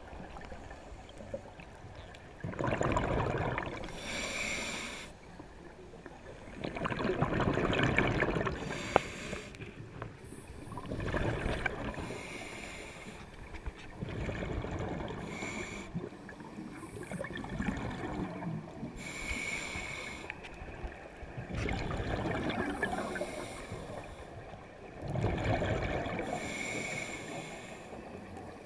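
Scuba diver breathing underwater through a regulator: a rush of exhaled bubbles every four seconds or so, with fainter hiss between breaths.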